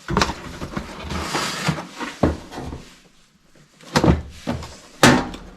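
A cardboard box being opened and its contents handled by hand: rustling of the packaging about a second in, and several knocks and thuds as flaps and parts are moved, the loudest two near the end.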